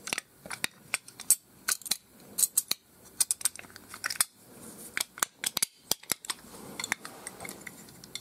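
Stanley 99E utility knife's zinc die-cast body halves and blade being handled and pressed together, giving many irregular sharp metal clicks and light scrapes.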